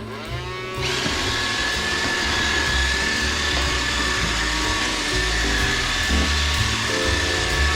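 Roomba 675 robot vacuum starting a cleaning run: its vacuum motor and brushes spin up within the first second, then run steadily with a high whine.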